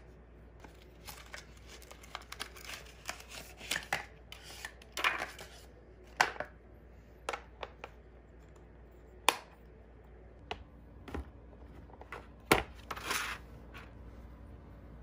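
Hands handling a plastic tablet and its keyboard case: scattered sharp clicks and knocks as the tablet is fitted into the case and a stylus is set into its pen slot, with a couple of brief rustles.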